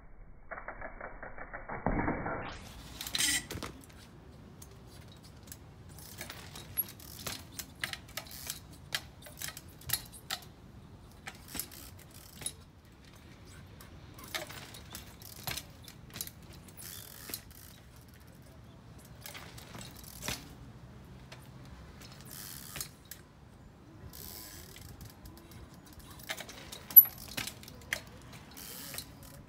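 Trials bicycle working on boulders: short runs of clicking from the rear hub's ratchet as the pedals are ratcheted, with knocks of tyres and rims landing on rock, the loudest a sharp knock near the end.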